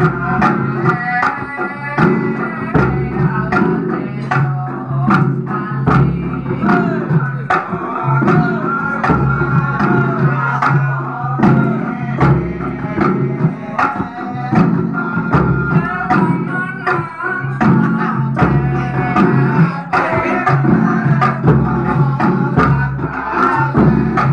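Live angguk dance music: hand-beaten frame drums keep a steady repeating rhythm of low beats and sharp slaps, with a voice singing over them.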